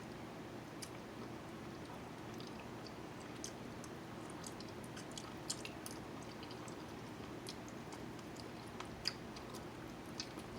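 Close-miked chewing of jerk chicken with crispy skin: soft, scattered wet clicks and small crunches, a few sharper ones about halfway through and near the end, over a steady low hum.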